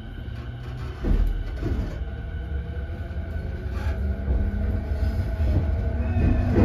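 E217-series electric train heard from inside the passenger car. A low running rumble jumps up in level about a second in, and a faint motor whine then rises slowly in pitch as the train gathers speed.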